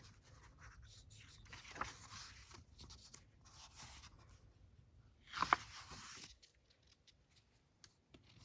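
Glossy photo book pages being handled and turned: soft paper rustles, with one louder rustle about five and a half seconds in.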